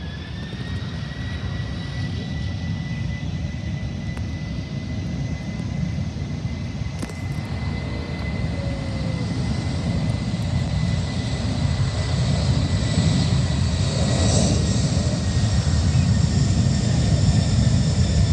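Jet airliner's engines spooling up: a whine rises at the start and then holds steady, over a low rumble that grows steadily louder.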